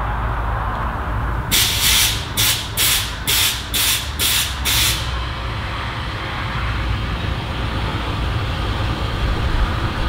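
Compressed air hissing out in seven short spurts, about two a second, in the first half, over a steady low rumble. The spurts are typical of air being bled off to make a compressor cut in.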